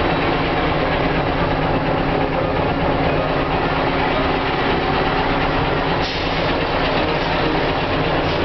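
Scania LBS 141's 14-litre V8 diesel engine running near idle as the truck creeps forward, heard from inside the cab as a steady deep drone.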